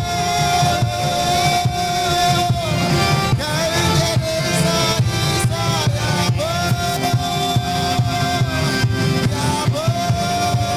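Live worship song: a man singing long held notes into a microphone over electronic keyboard and a drum beat. The held notes last two to three seconds each, with a shorter phrase about four seconds in.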